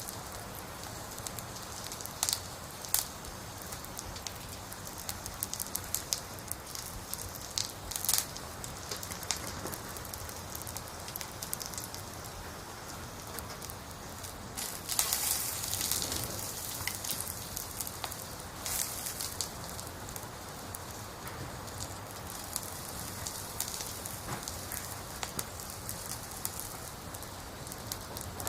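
Sparrows bathing in shallow water, with quick splashes and flicks of spattering water over a steady hiss. A busier spell of splashing comes about halfway through.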